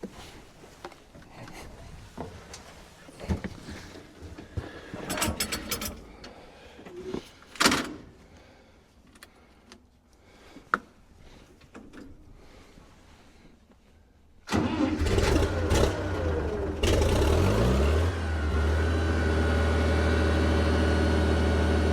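Farmall 706 tractor engine cranked and started about fifteen seconds in, rising in pitch as it catches, then settling into a steady idle on fresh oil just after an oil and filter change. Before it, scattered clicks and knocks.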